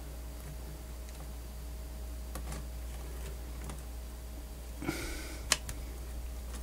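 Multimeter probe tips being worked onto a circuit board while a paper sheet is held back: a few faint taps, a short rustle near five seconds and one sharp click just after it, over a steady low hum.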